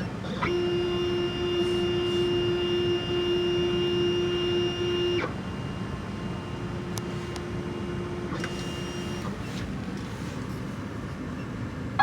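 Miracle A7 key machine's motors running as the tracer decodes an HU100 key blade: a steady motor whine for about five seconds, then a quieter one for about three seconds.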